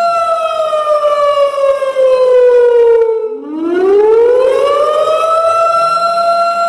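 Warning siren in a slow wail: a steady tone falls in pitch for about three seconds, dips briefly, then rises back up and holds at its top pitch.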